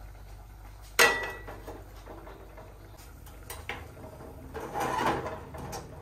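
Aluminium stockpot set down on a gas stove's metal grate: one sharp clank about a second in that rings briefly. A softer, longer clatter of pot handling follows about five seconds in.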